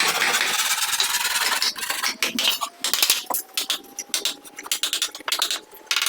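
A hand tool rasping and scraping on wood: a steady scrape for about the first three seconds, then a run of short, quick strokes.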